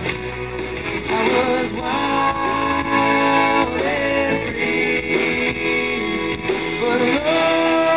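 A live band playing a country-pop song: strummed acoustic and electric guitars with a voice singing long held notes.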